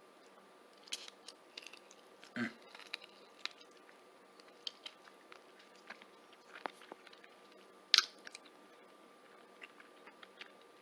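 A person chewing boiled chicken feet close to the microphone: scattered wet clicks and crunches of skin and small bones, the loudest about eight seconds in.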